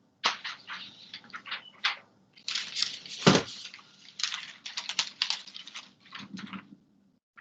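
A dense, irregular run of crackling clicks and rustles, like small objects or paper being handled, with a brief gap about two seconds in and stopping shortly before the end.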